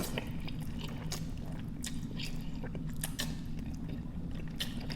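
Close-up eating of noodles: wet chewing with many short smacking clicks, scattered irregularly, over a steady low hum.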